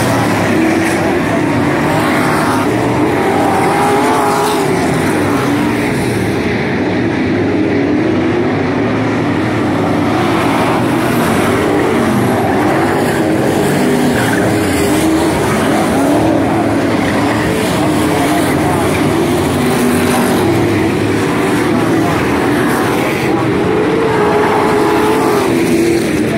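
A field of dirt-track street stock cars with V8 engines running loud around the clay oval, their engine pitch rising and falling as they throttle through the turns and down the straights.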